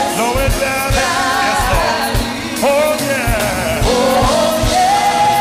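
Gospel singing with instrumental accompaniment and drums keeping the beat.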